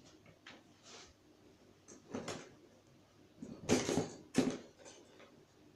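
Light knocks and clatters of a rabbit's feeder and salt lick being handled and taken out of a wire cage with a plastic base, the loudest two close together about four seconds in.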